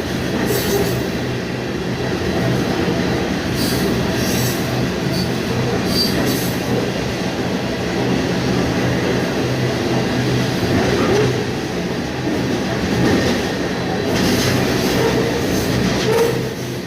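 Train rolling on the rails: a steady, loud rumble with a few brief high wheel squeals.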